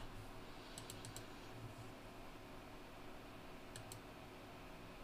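Faint clicks at a computer: a quick cluster of keyboard and mouse clicks about a second in, then two more clicks near four seconds, over a faint low hum.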